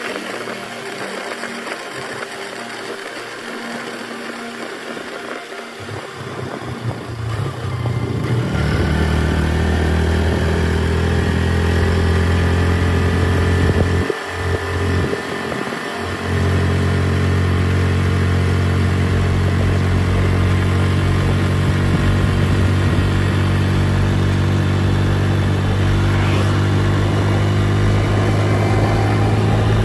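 Motorcycle engine running quietly at first, then picking up about six to eight seconds in and running steady and louder under way. It briefly drops off and picks up again near the middle.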